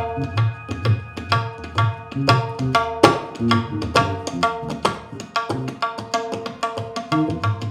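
Live band playing a busy, percussion-led passage: quick drum strokes, several a second, over low pitched notes and held tones.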